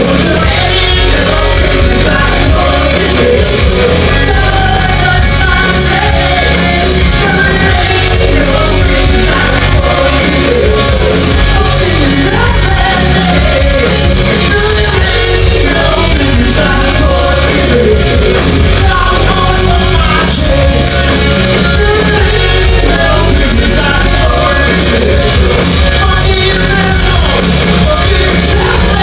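A live rock band playing loudly: drums, electric bass and electric guitar under a lead singer's shouted vocals, with a heavy low end.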